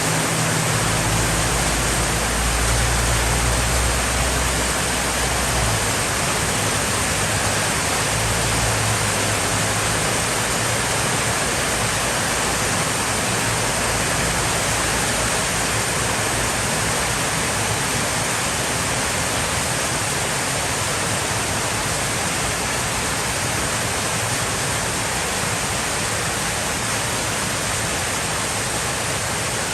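Heavy rain pouring down in a steady, even hiss, with a low rumble under it during the first six seconds or so and again briefly a little later.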